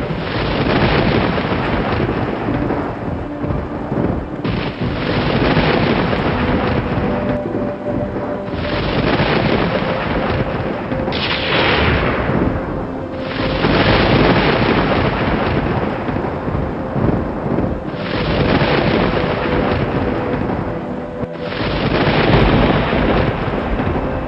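Thunder rumbling in repeated swells every few seconds, with rain hissing throughout. A faint steady tone runs underneath.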